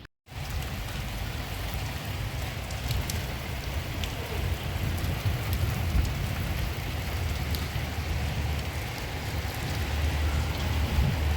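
Steady rain falling, with scattered drop ticks over a strong low rumble that swells near the end.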